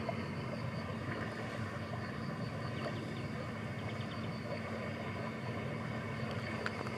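Steady outdoor background noise: a low rumble with a faint, high, steady buzz above it and a few faint ticks.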